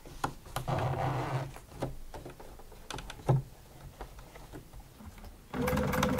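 Small handling clicks and rustles as the zip slider and fabric are shifted under the presser foot, with one sharp knock just after three seconds. About five and a half seconds in, an electric sewing machine starts stitching: a steady motor hum with fast, regular needle ticks.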